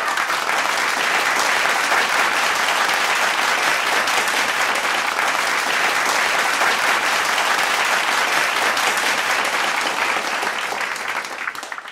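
Crowd applauding with steady hand clapping, which thins out near the end.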